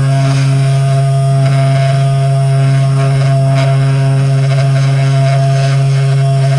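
A motor running steadily with a loud, constant low hum and a few steady higher tones, with faint clicks here and there.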